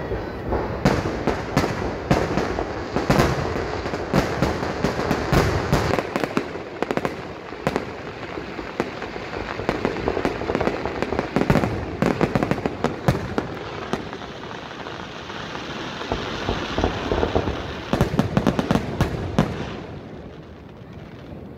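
Fireworks going off in a dense barrage of sharp bangs and pops over steady crackling, in waves of heavier firing. The barrage thins out near the end.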